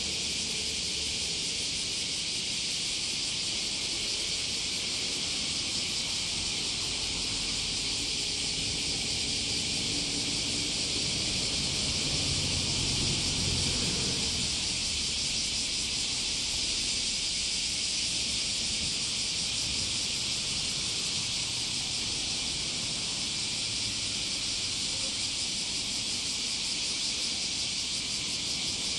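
Steady, high-pitched chorus of insects, with a faint low rumble underneath that swells briefly around the middle.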